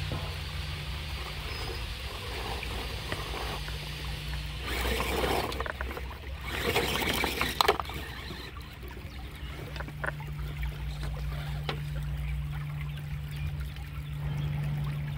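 RC rock crawler running: a low steady hum, broken for a few seconds in the middle by rushing, clattering noise with sharp clicks.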